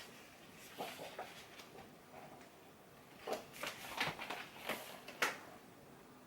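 Pages of a book being turned and handled: soft rustles and clicks, a few at about a second in and a busier run in the second half.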